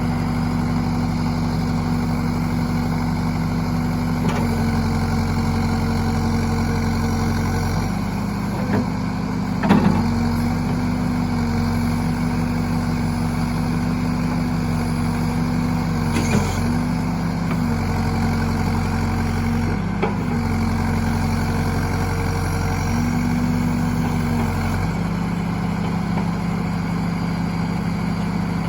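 John Deere 450C's diesel engine running steadily. Its pitch dips briefly several times as if taking load, and a few sharp metallic knocks come about a third and halfway through.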